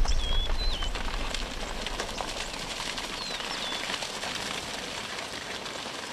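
A herd of African buffalo stampeding over dry, dusty ground: a low rumble of many hooves with a patter of individual footfalls, loudest at the start and slowly fading. Short whistled bird calls sound over it twice.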